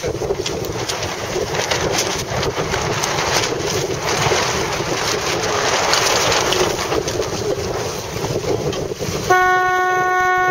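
Strong wind buffeting the microphone over choppy water. About nine seconds in, a single long horn blast sounds.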